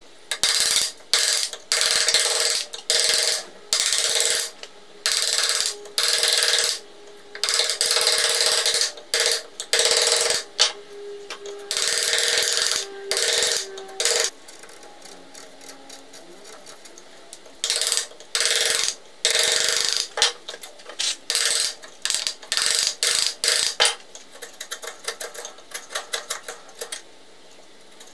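Sharp bench chisel pushed by hand, paring shavings off a small wooden block, each cut a crisp slicing hiss. The cuts come in a long run about once a second, pause briefly, resume, and give way to a flurry of short, light ticking cuts near the end.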